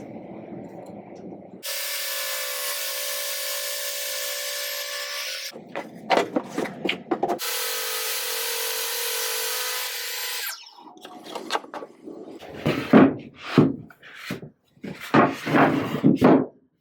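A power tool runs steadily in two spells of about four and three seconds, a hiss over a steady hum. Between the spells and after them come runs of rough rubbing strokes on wood, the later strokes being the loudest sounds.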